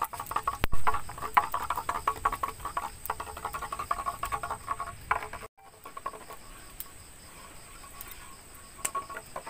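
Frogs calling in a rapid, pulsing night chorus. Sharp clicks and knocks fall over it, the loudest just under a second in, as a knife works a split bamboo tube. The chorus cuts out briefly about halfway through and returns fainter.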